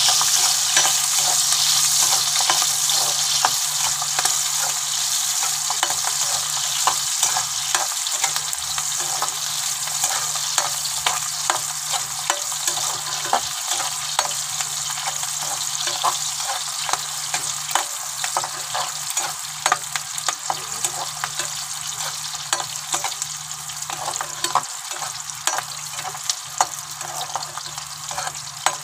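Onion pieces frying in hot oil in a kadhai, a steady sizzle dotted with sharp crackles and pops that slowly dies down as the onions cook toward light brown.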